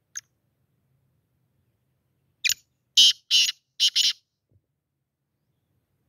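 Male black francolin calling: one faint short note at the start, then about two seconds later its harsh, scratchy call of five quick notes in under two seconds.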